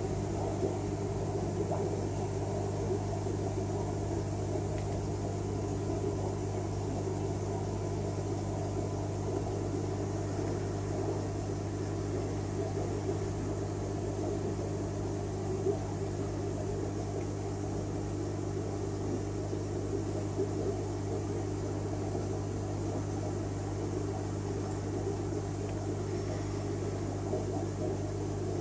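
Steady low hum with a constant rumble underneath, the running noise of aquarium equipment such as air pumps and filters.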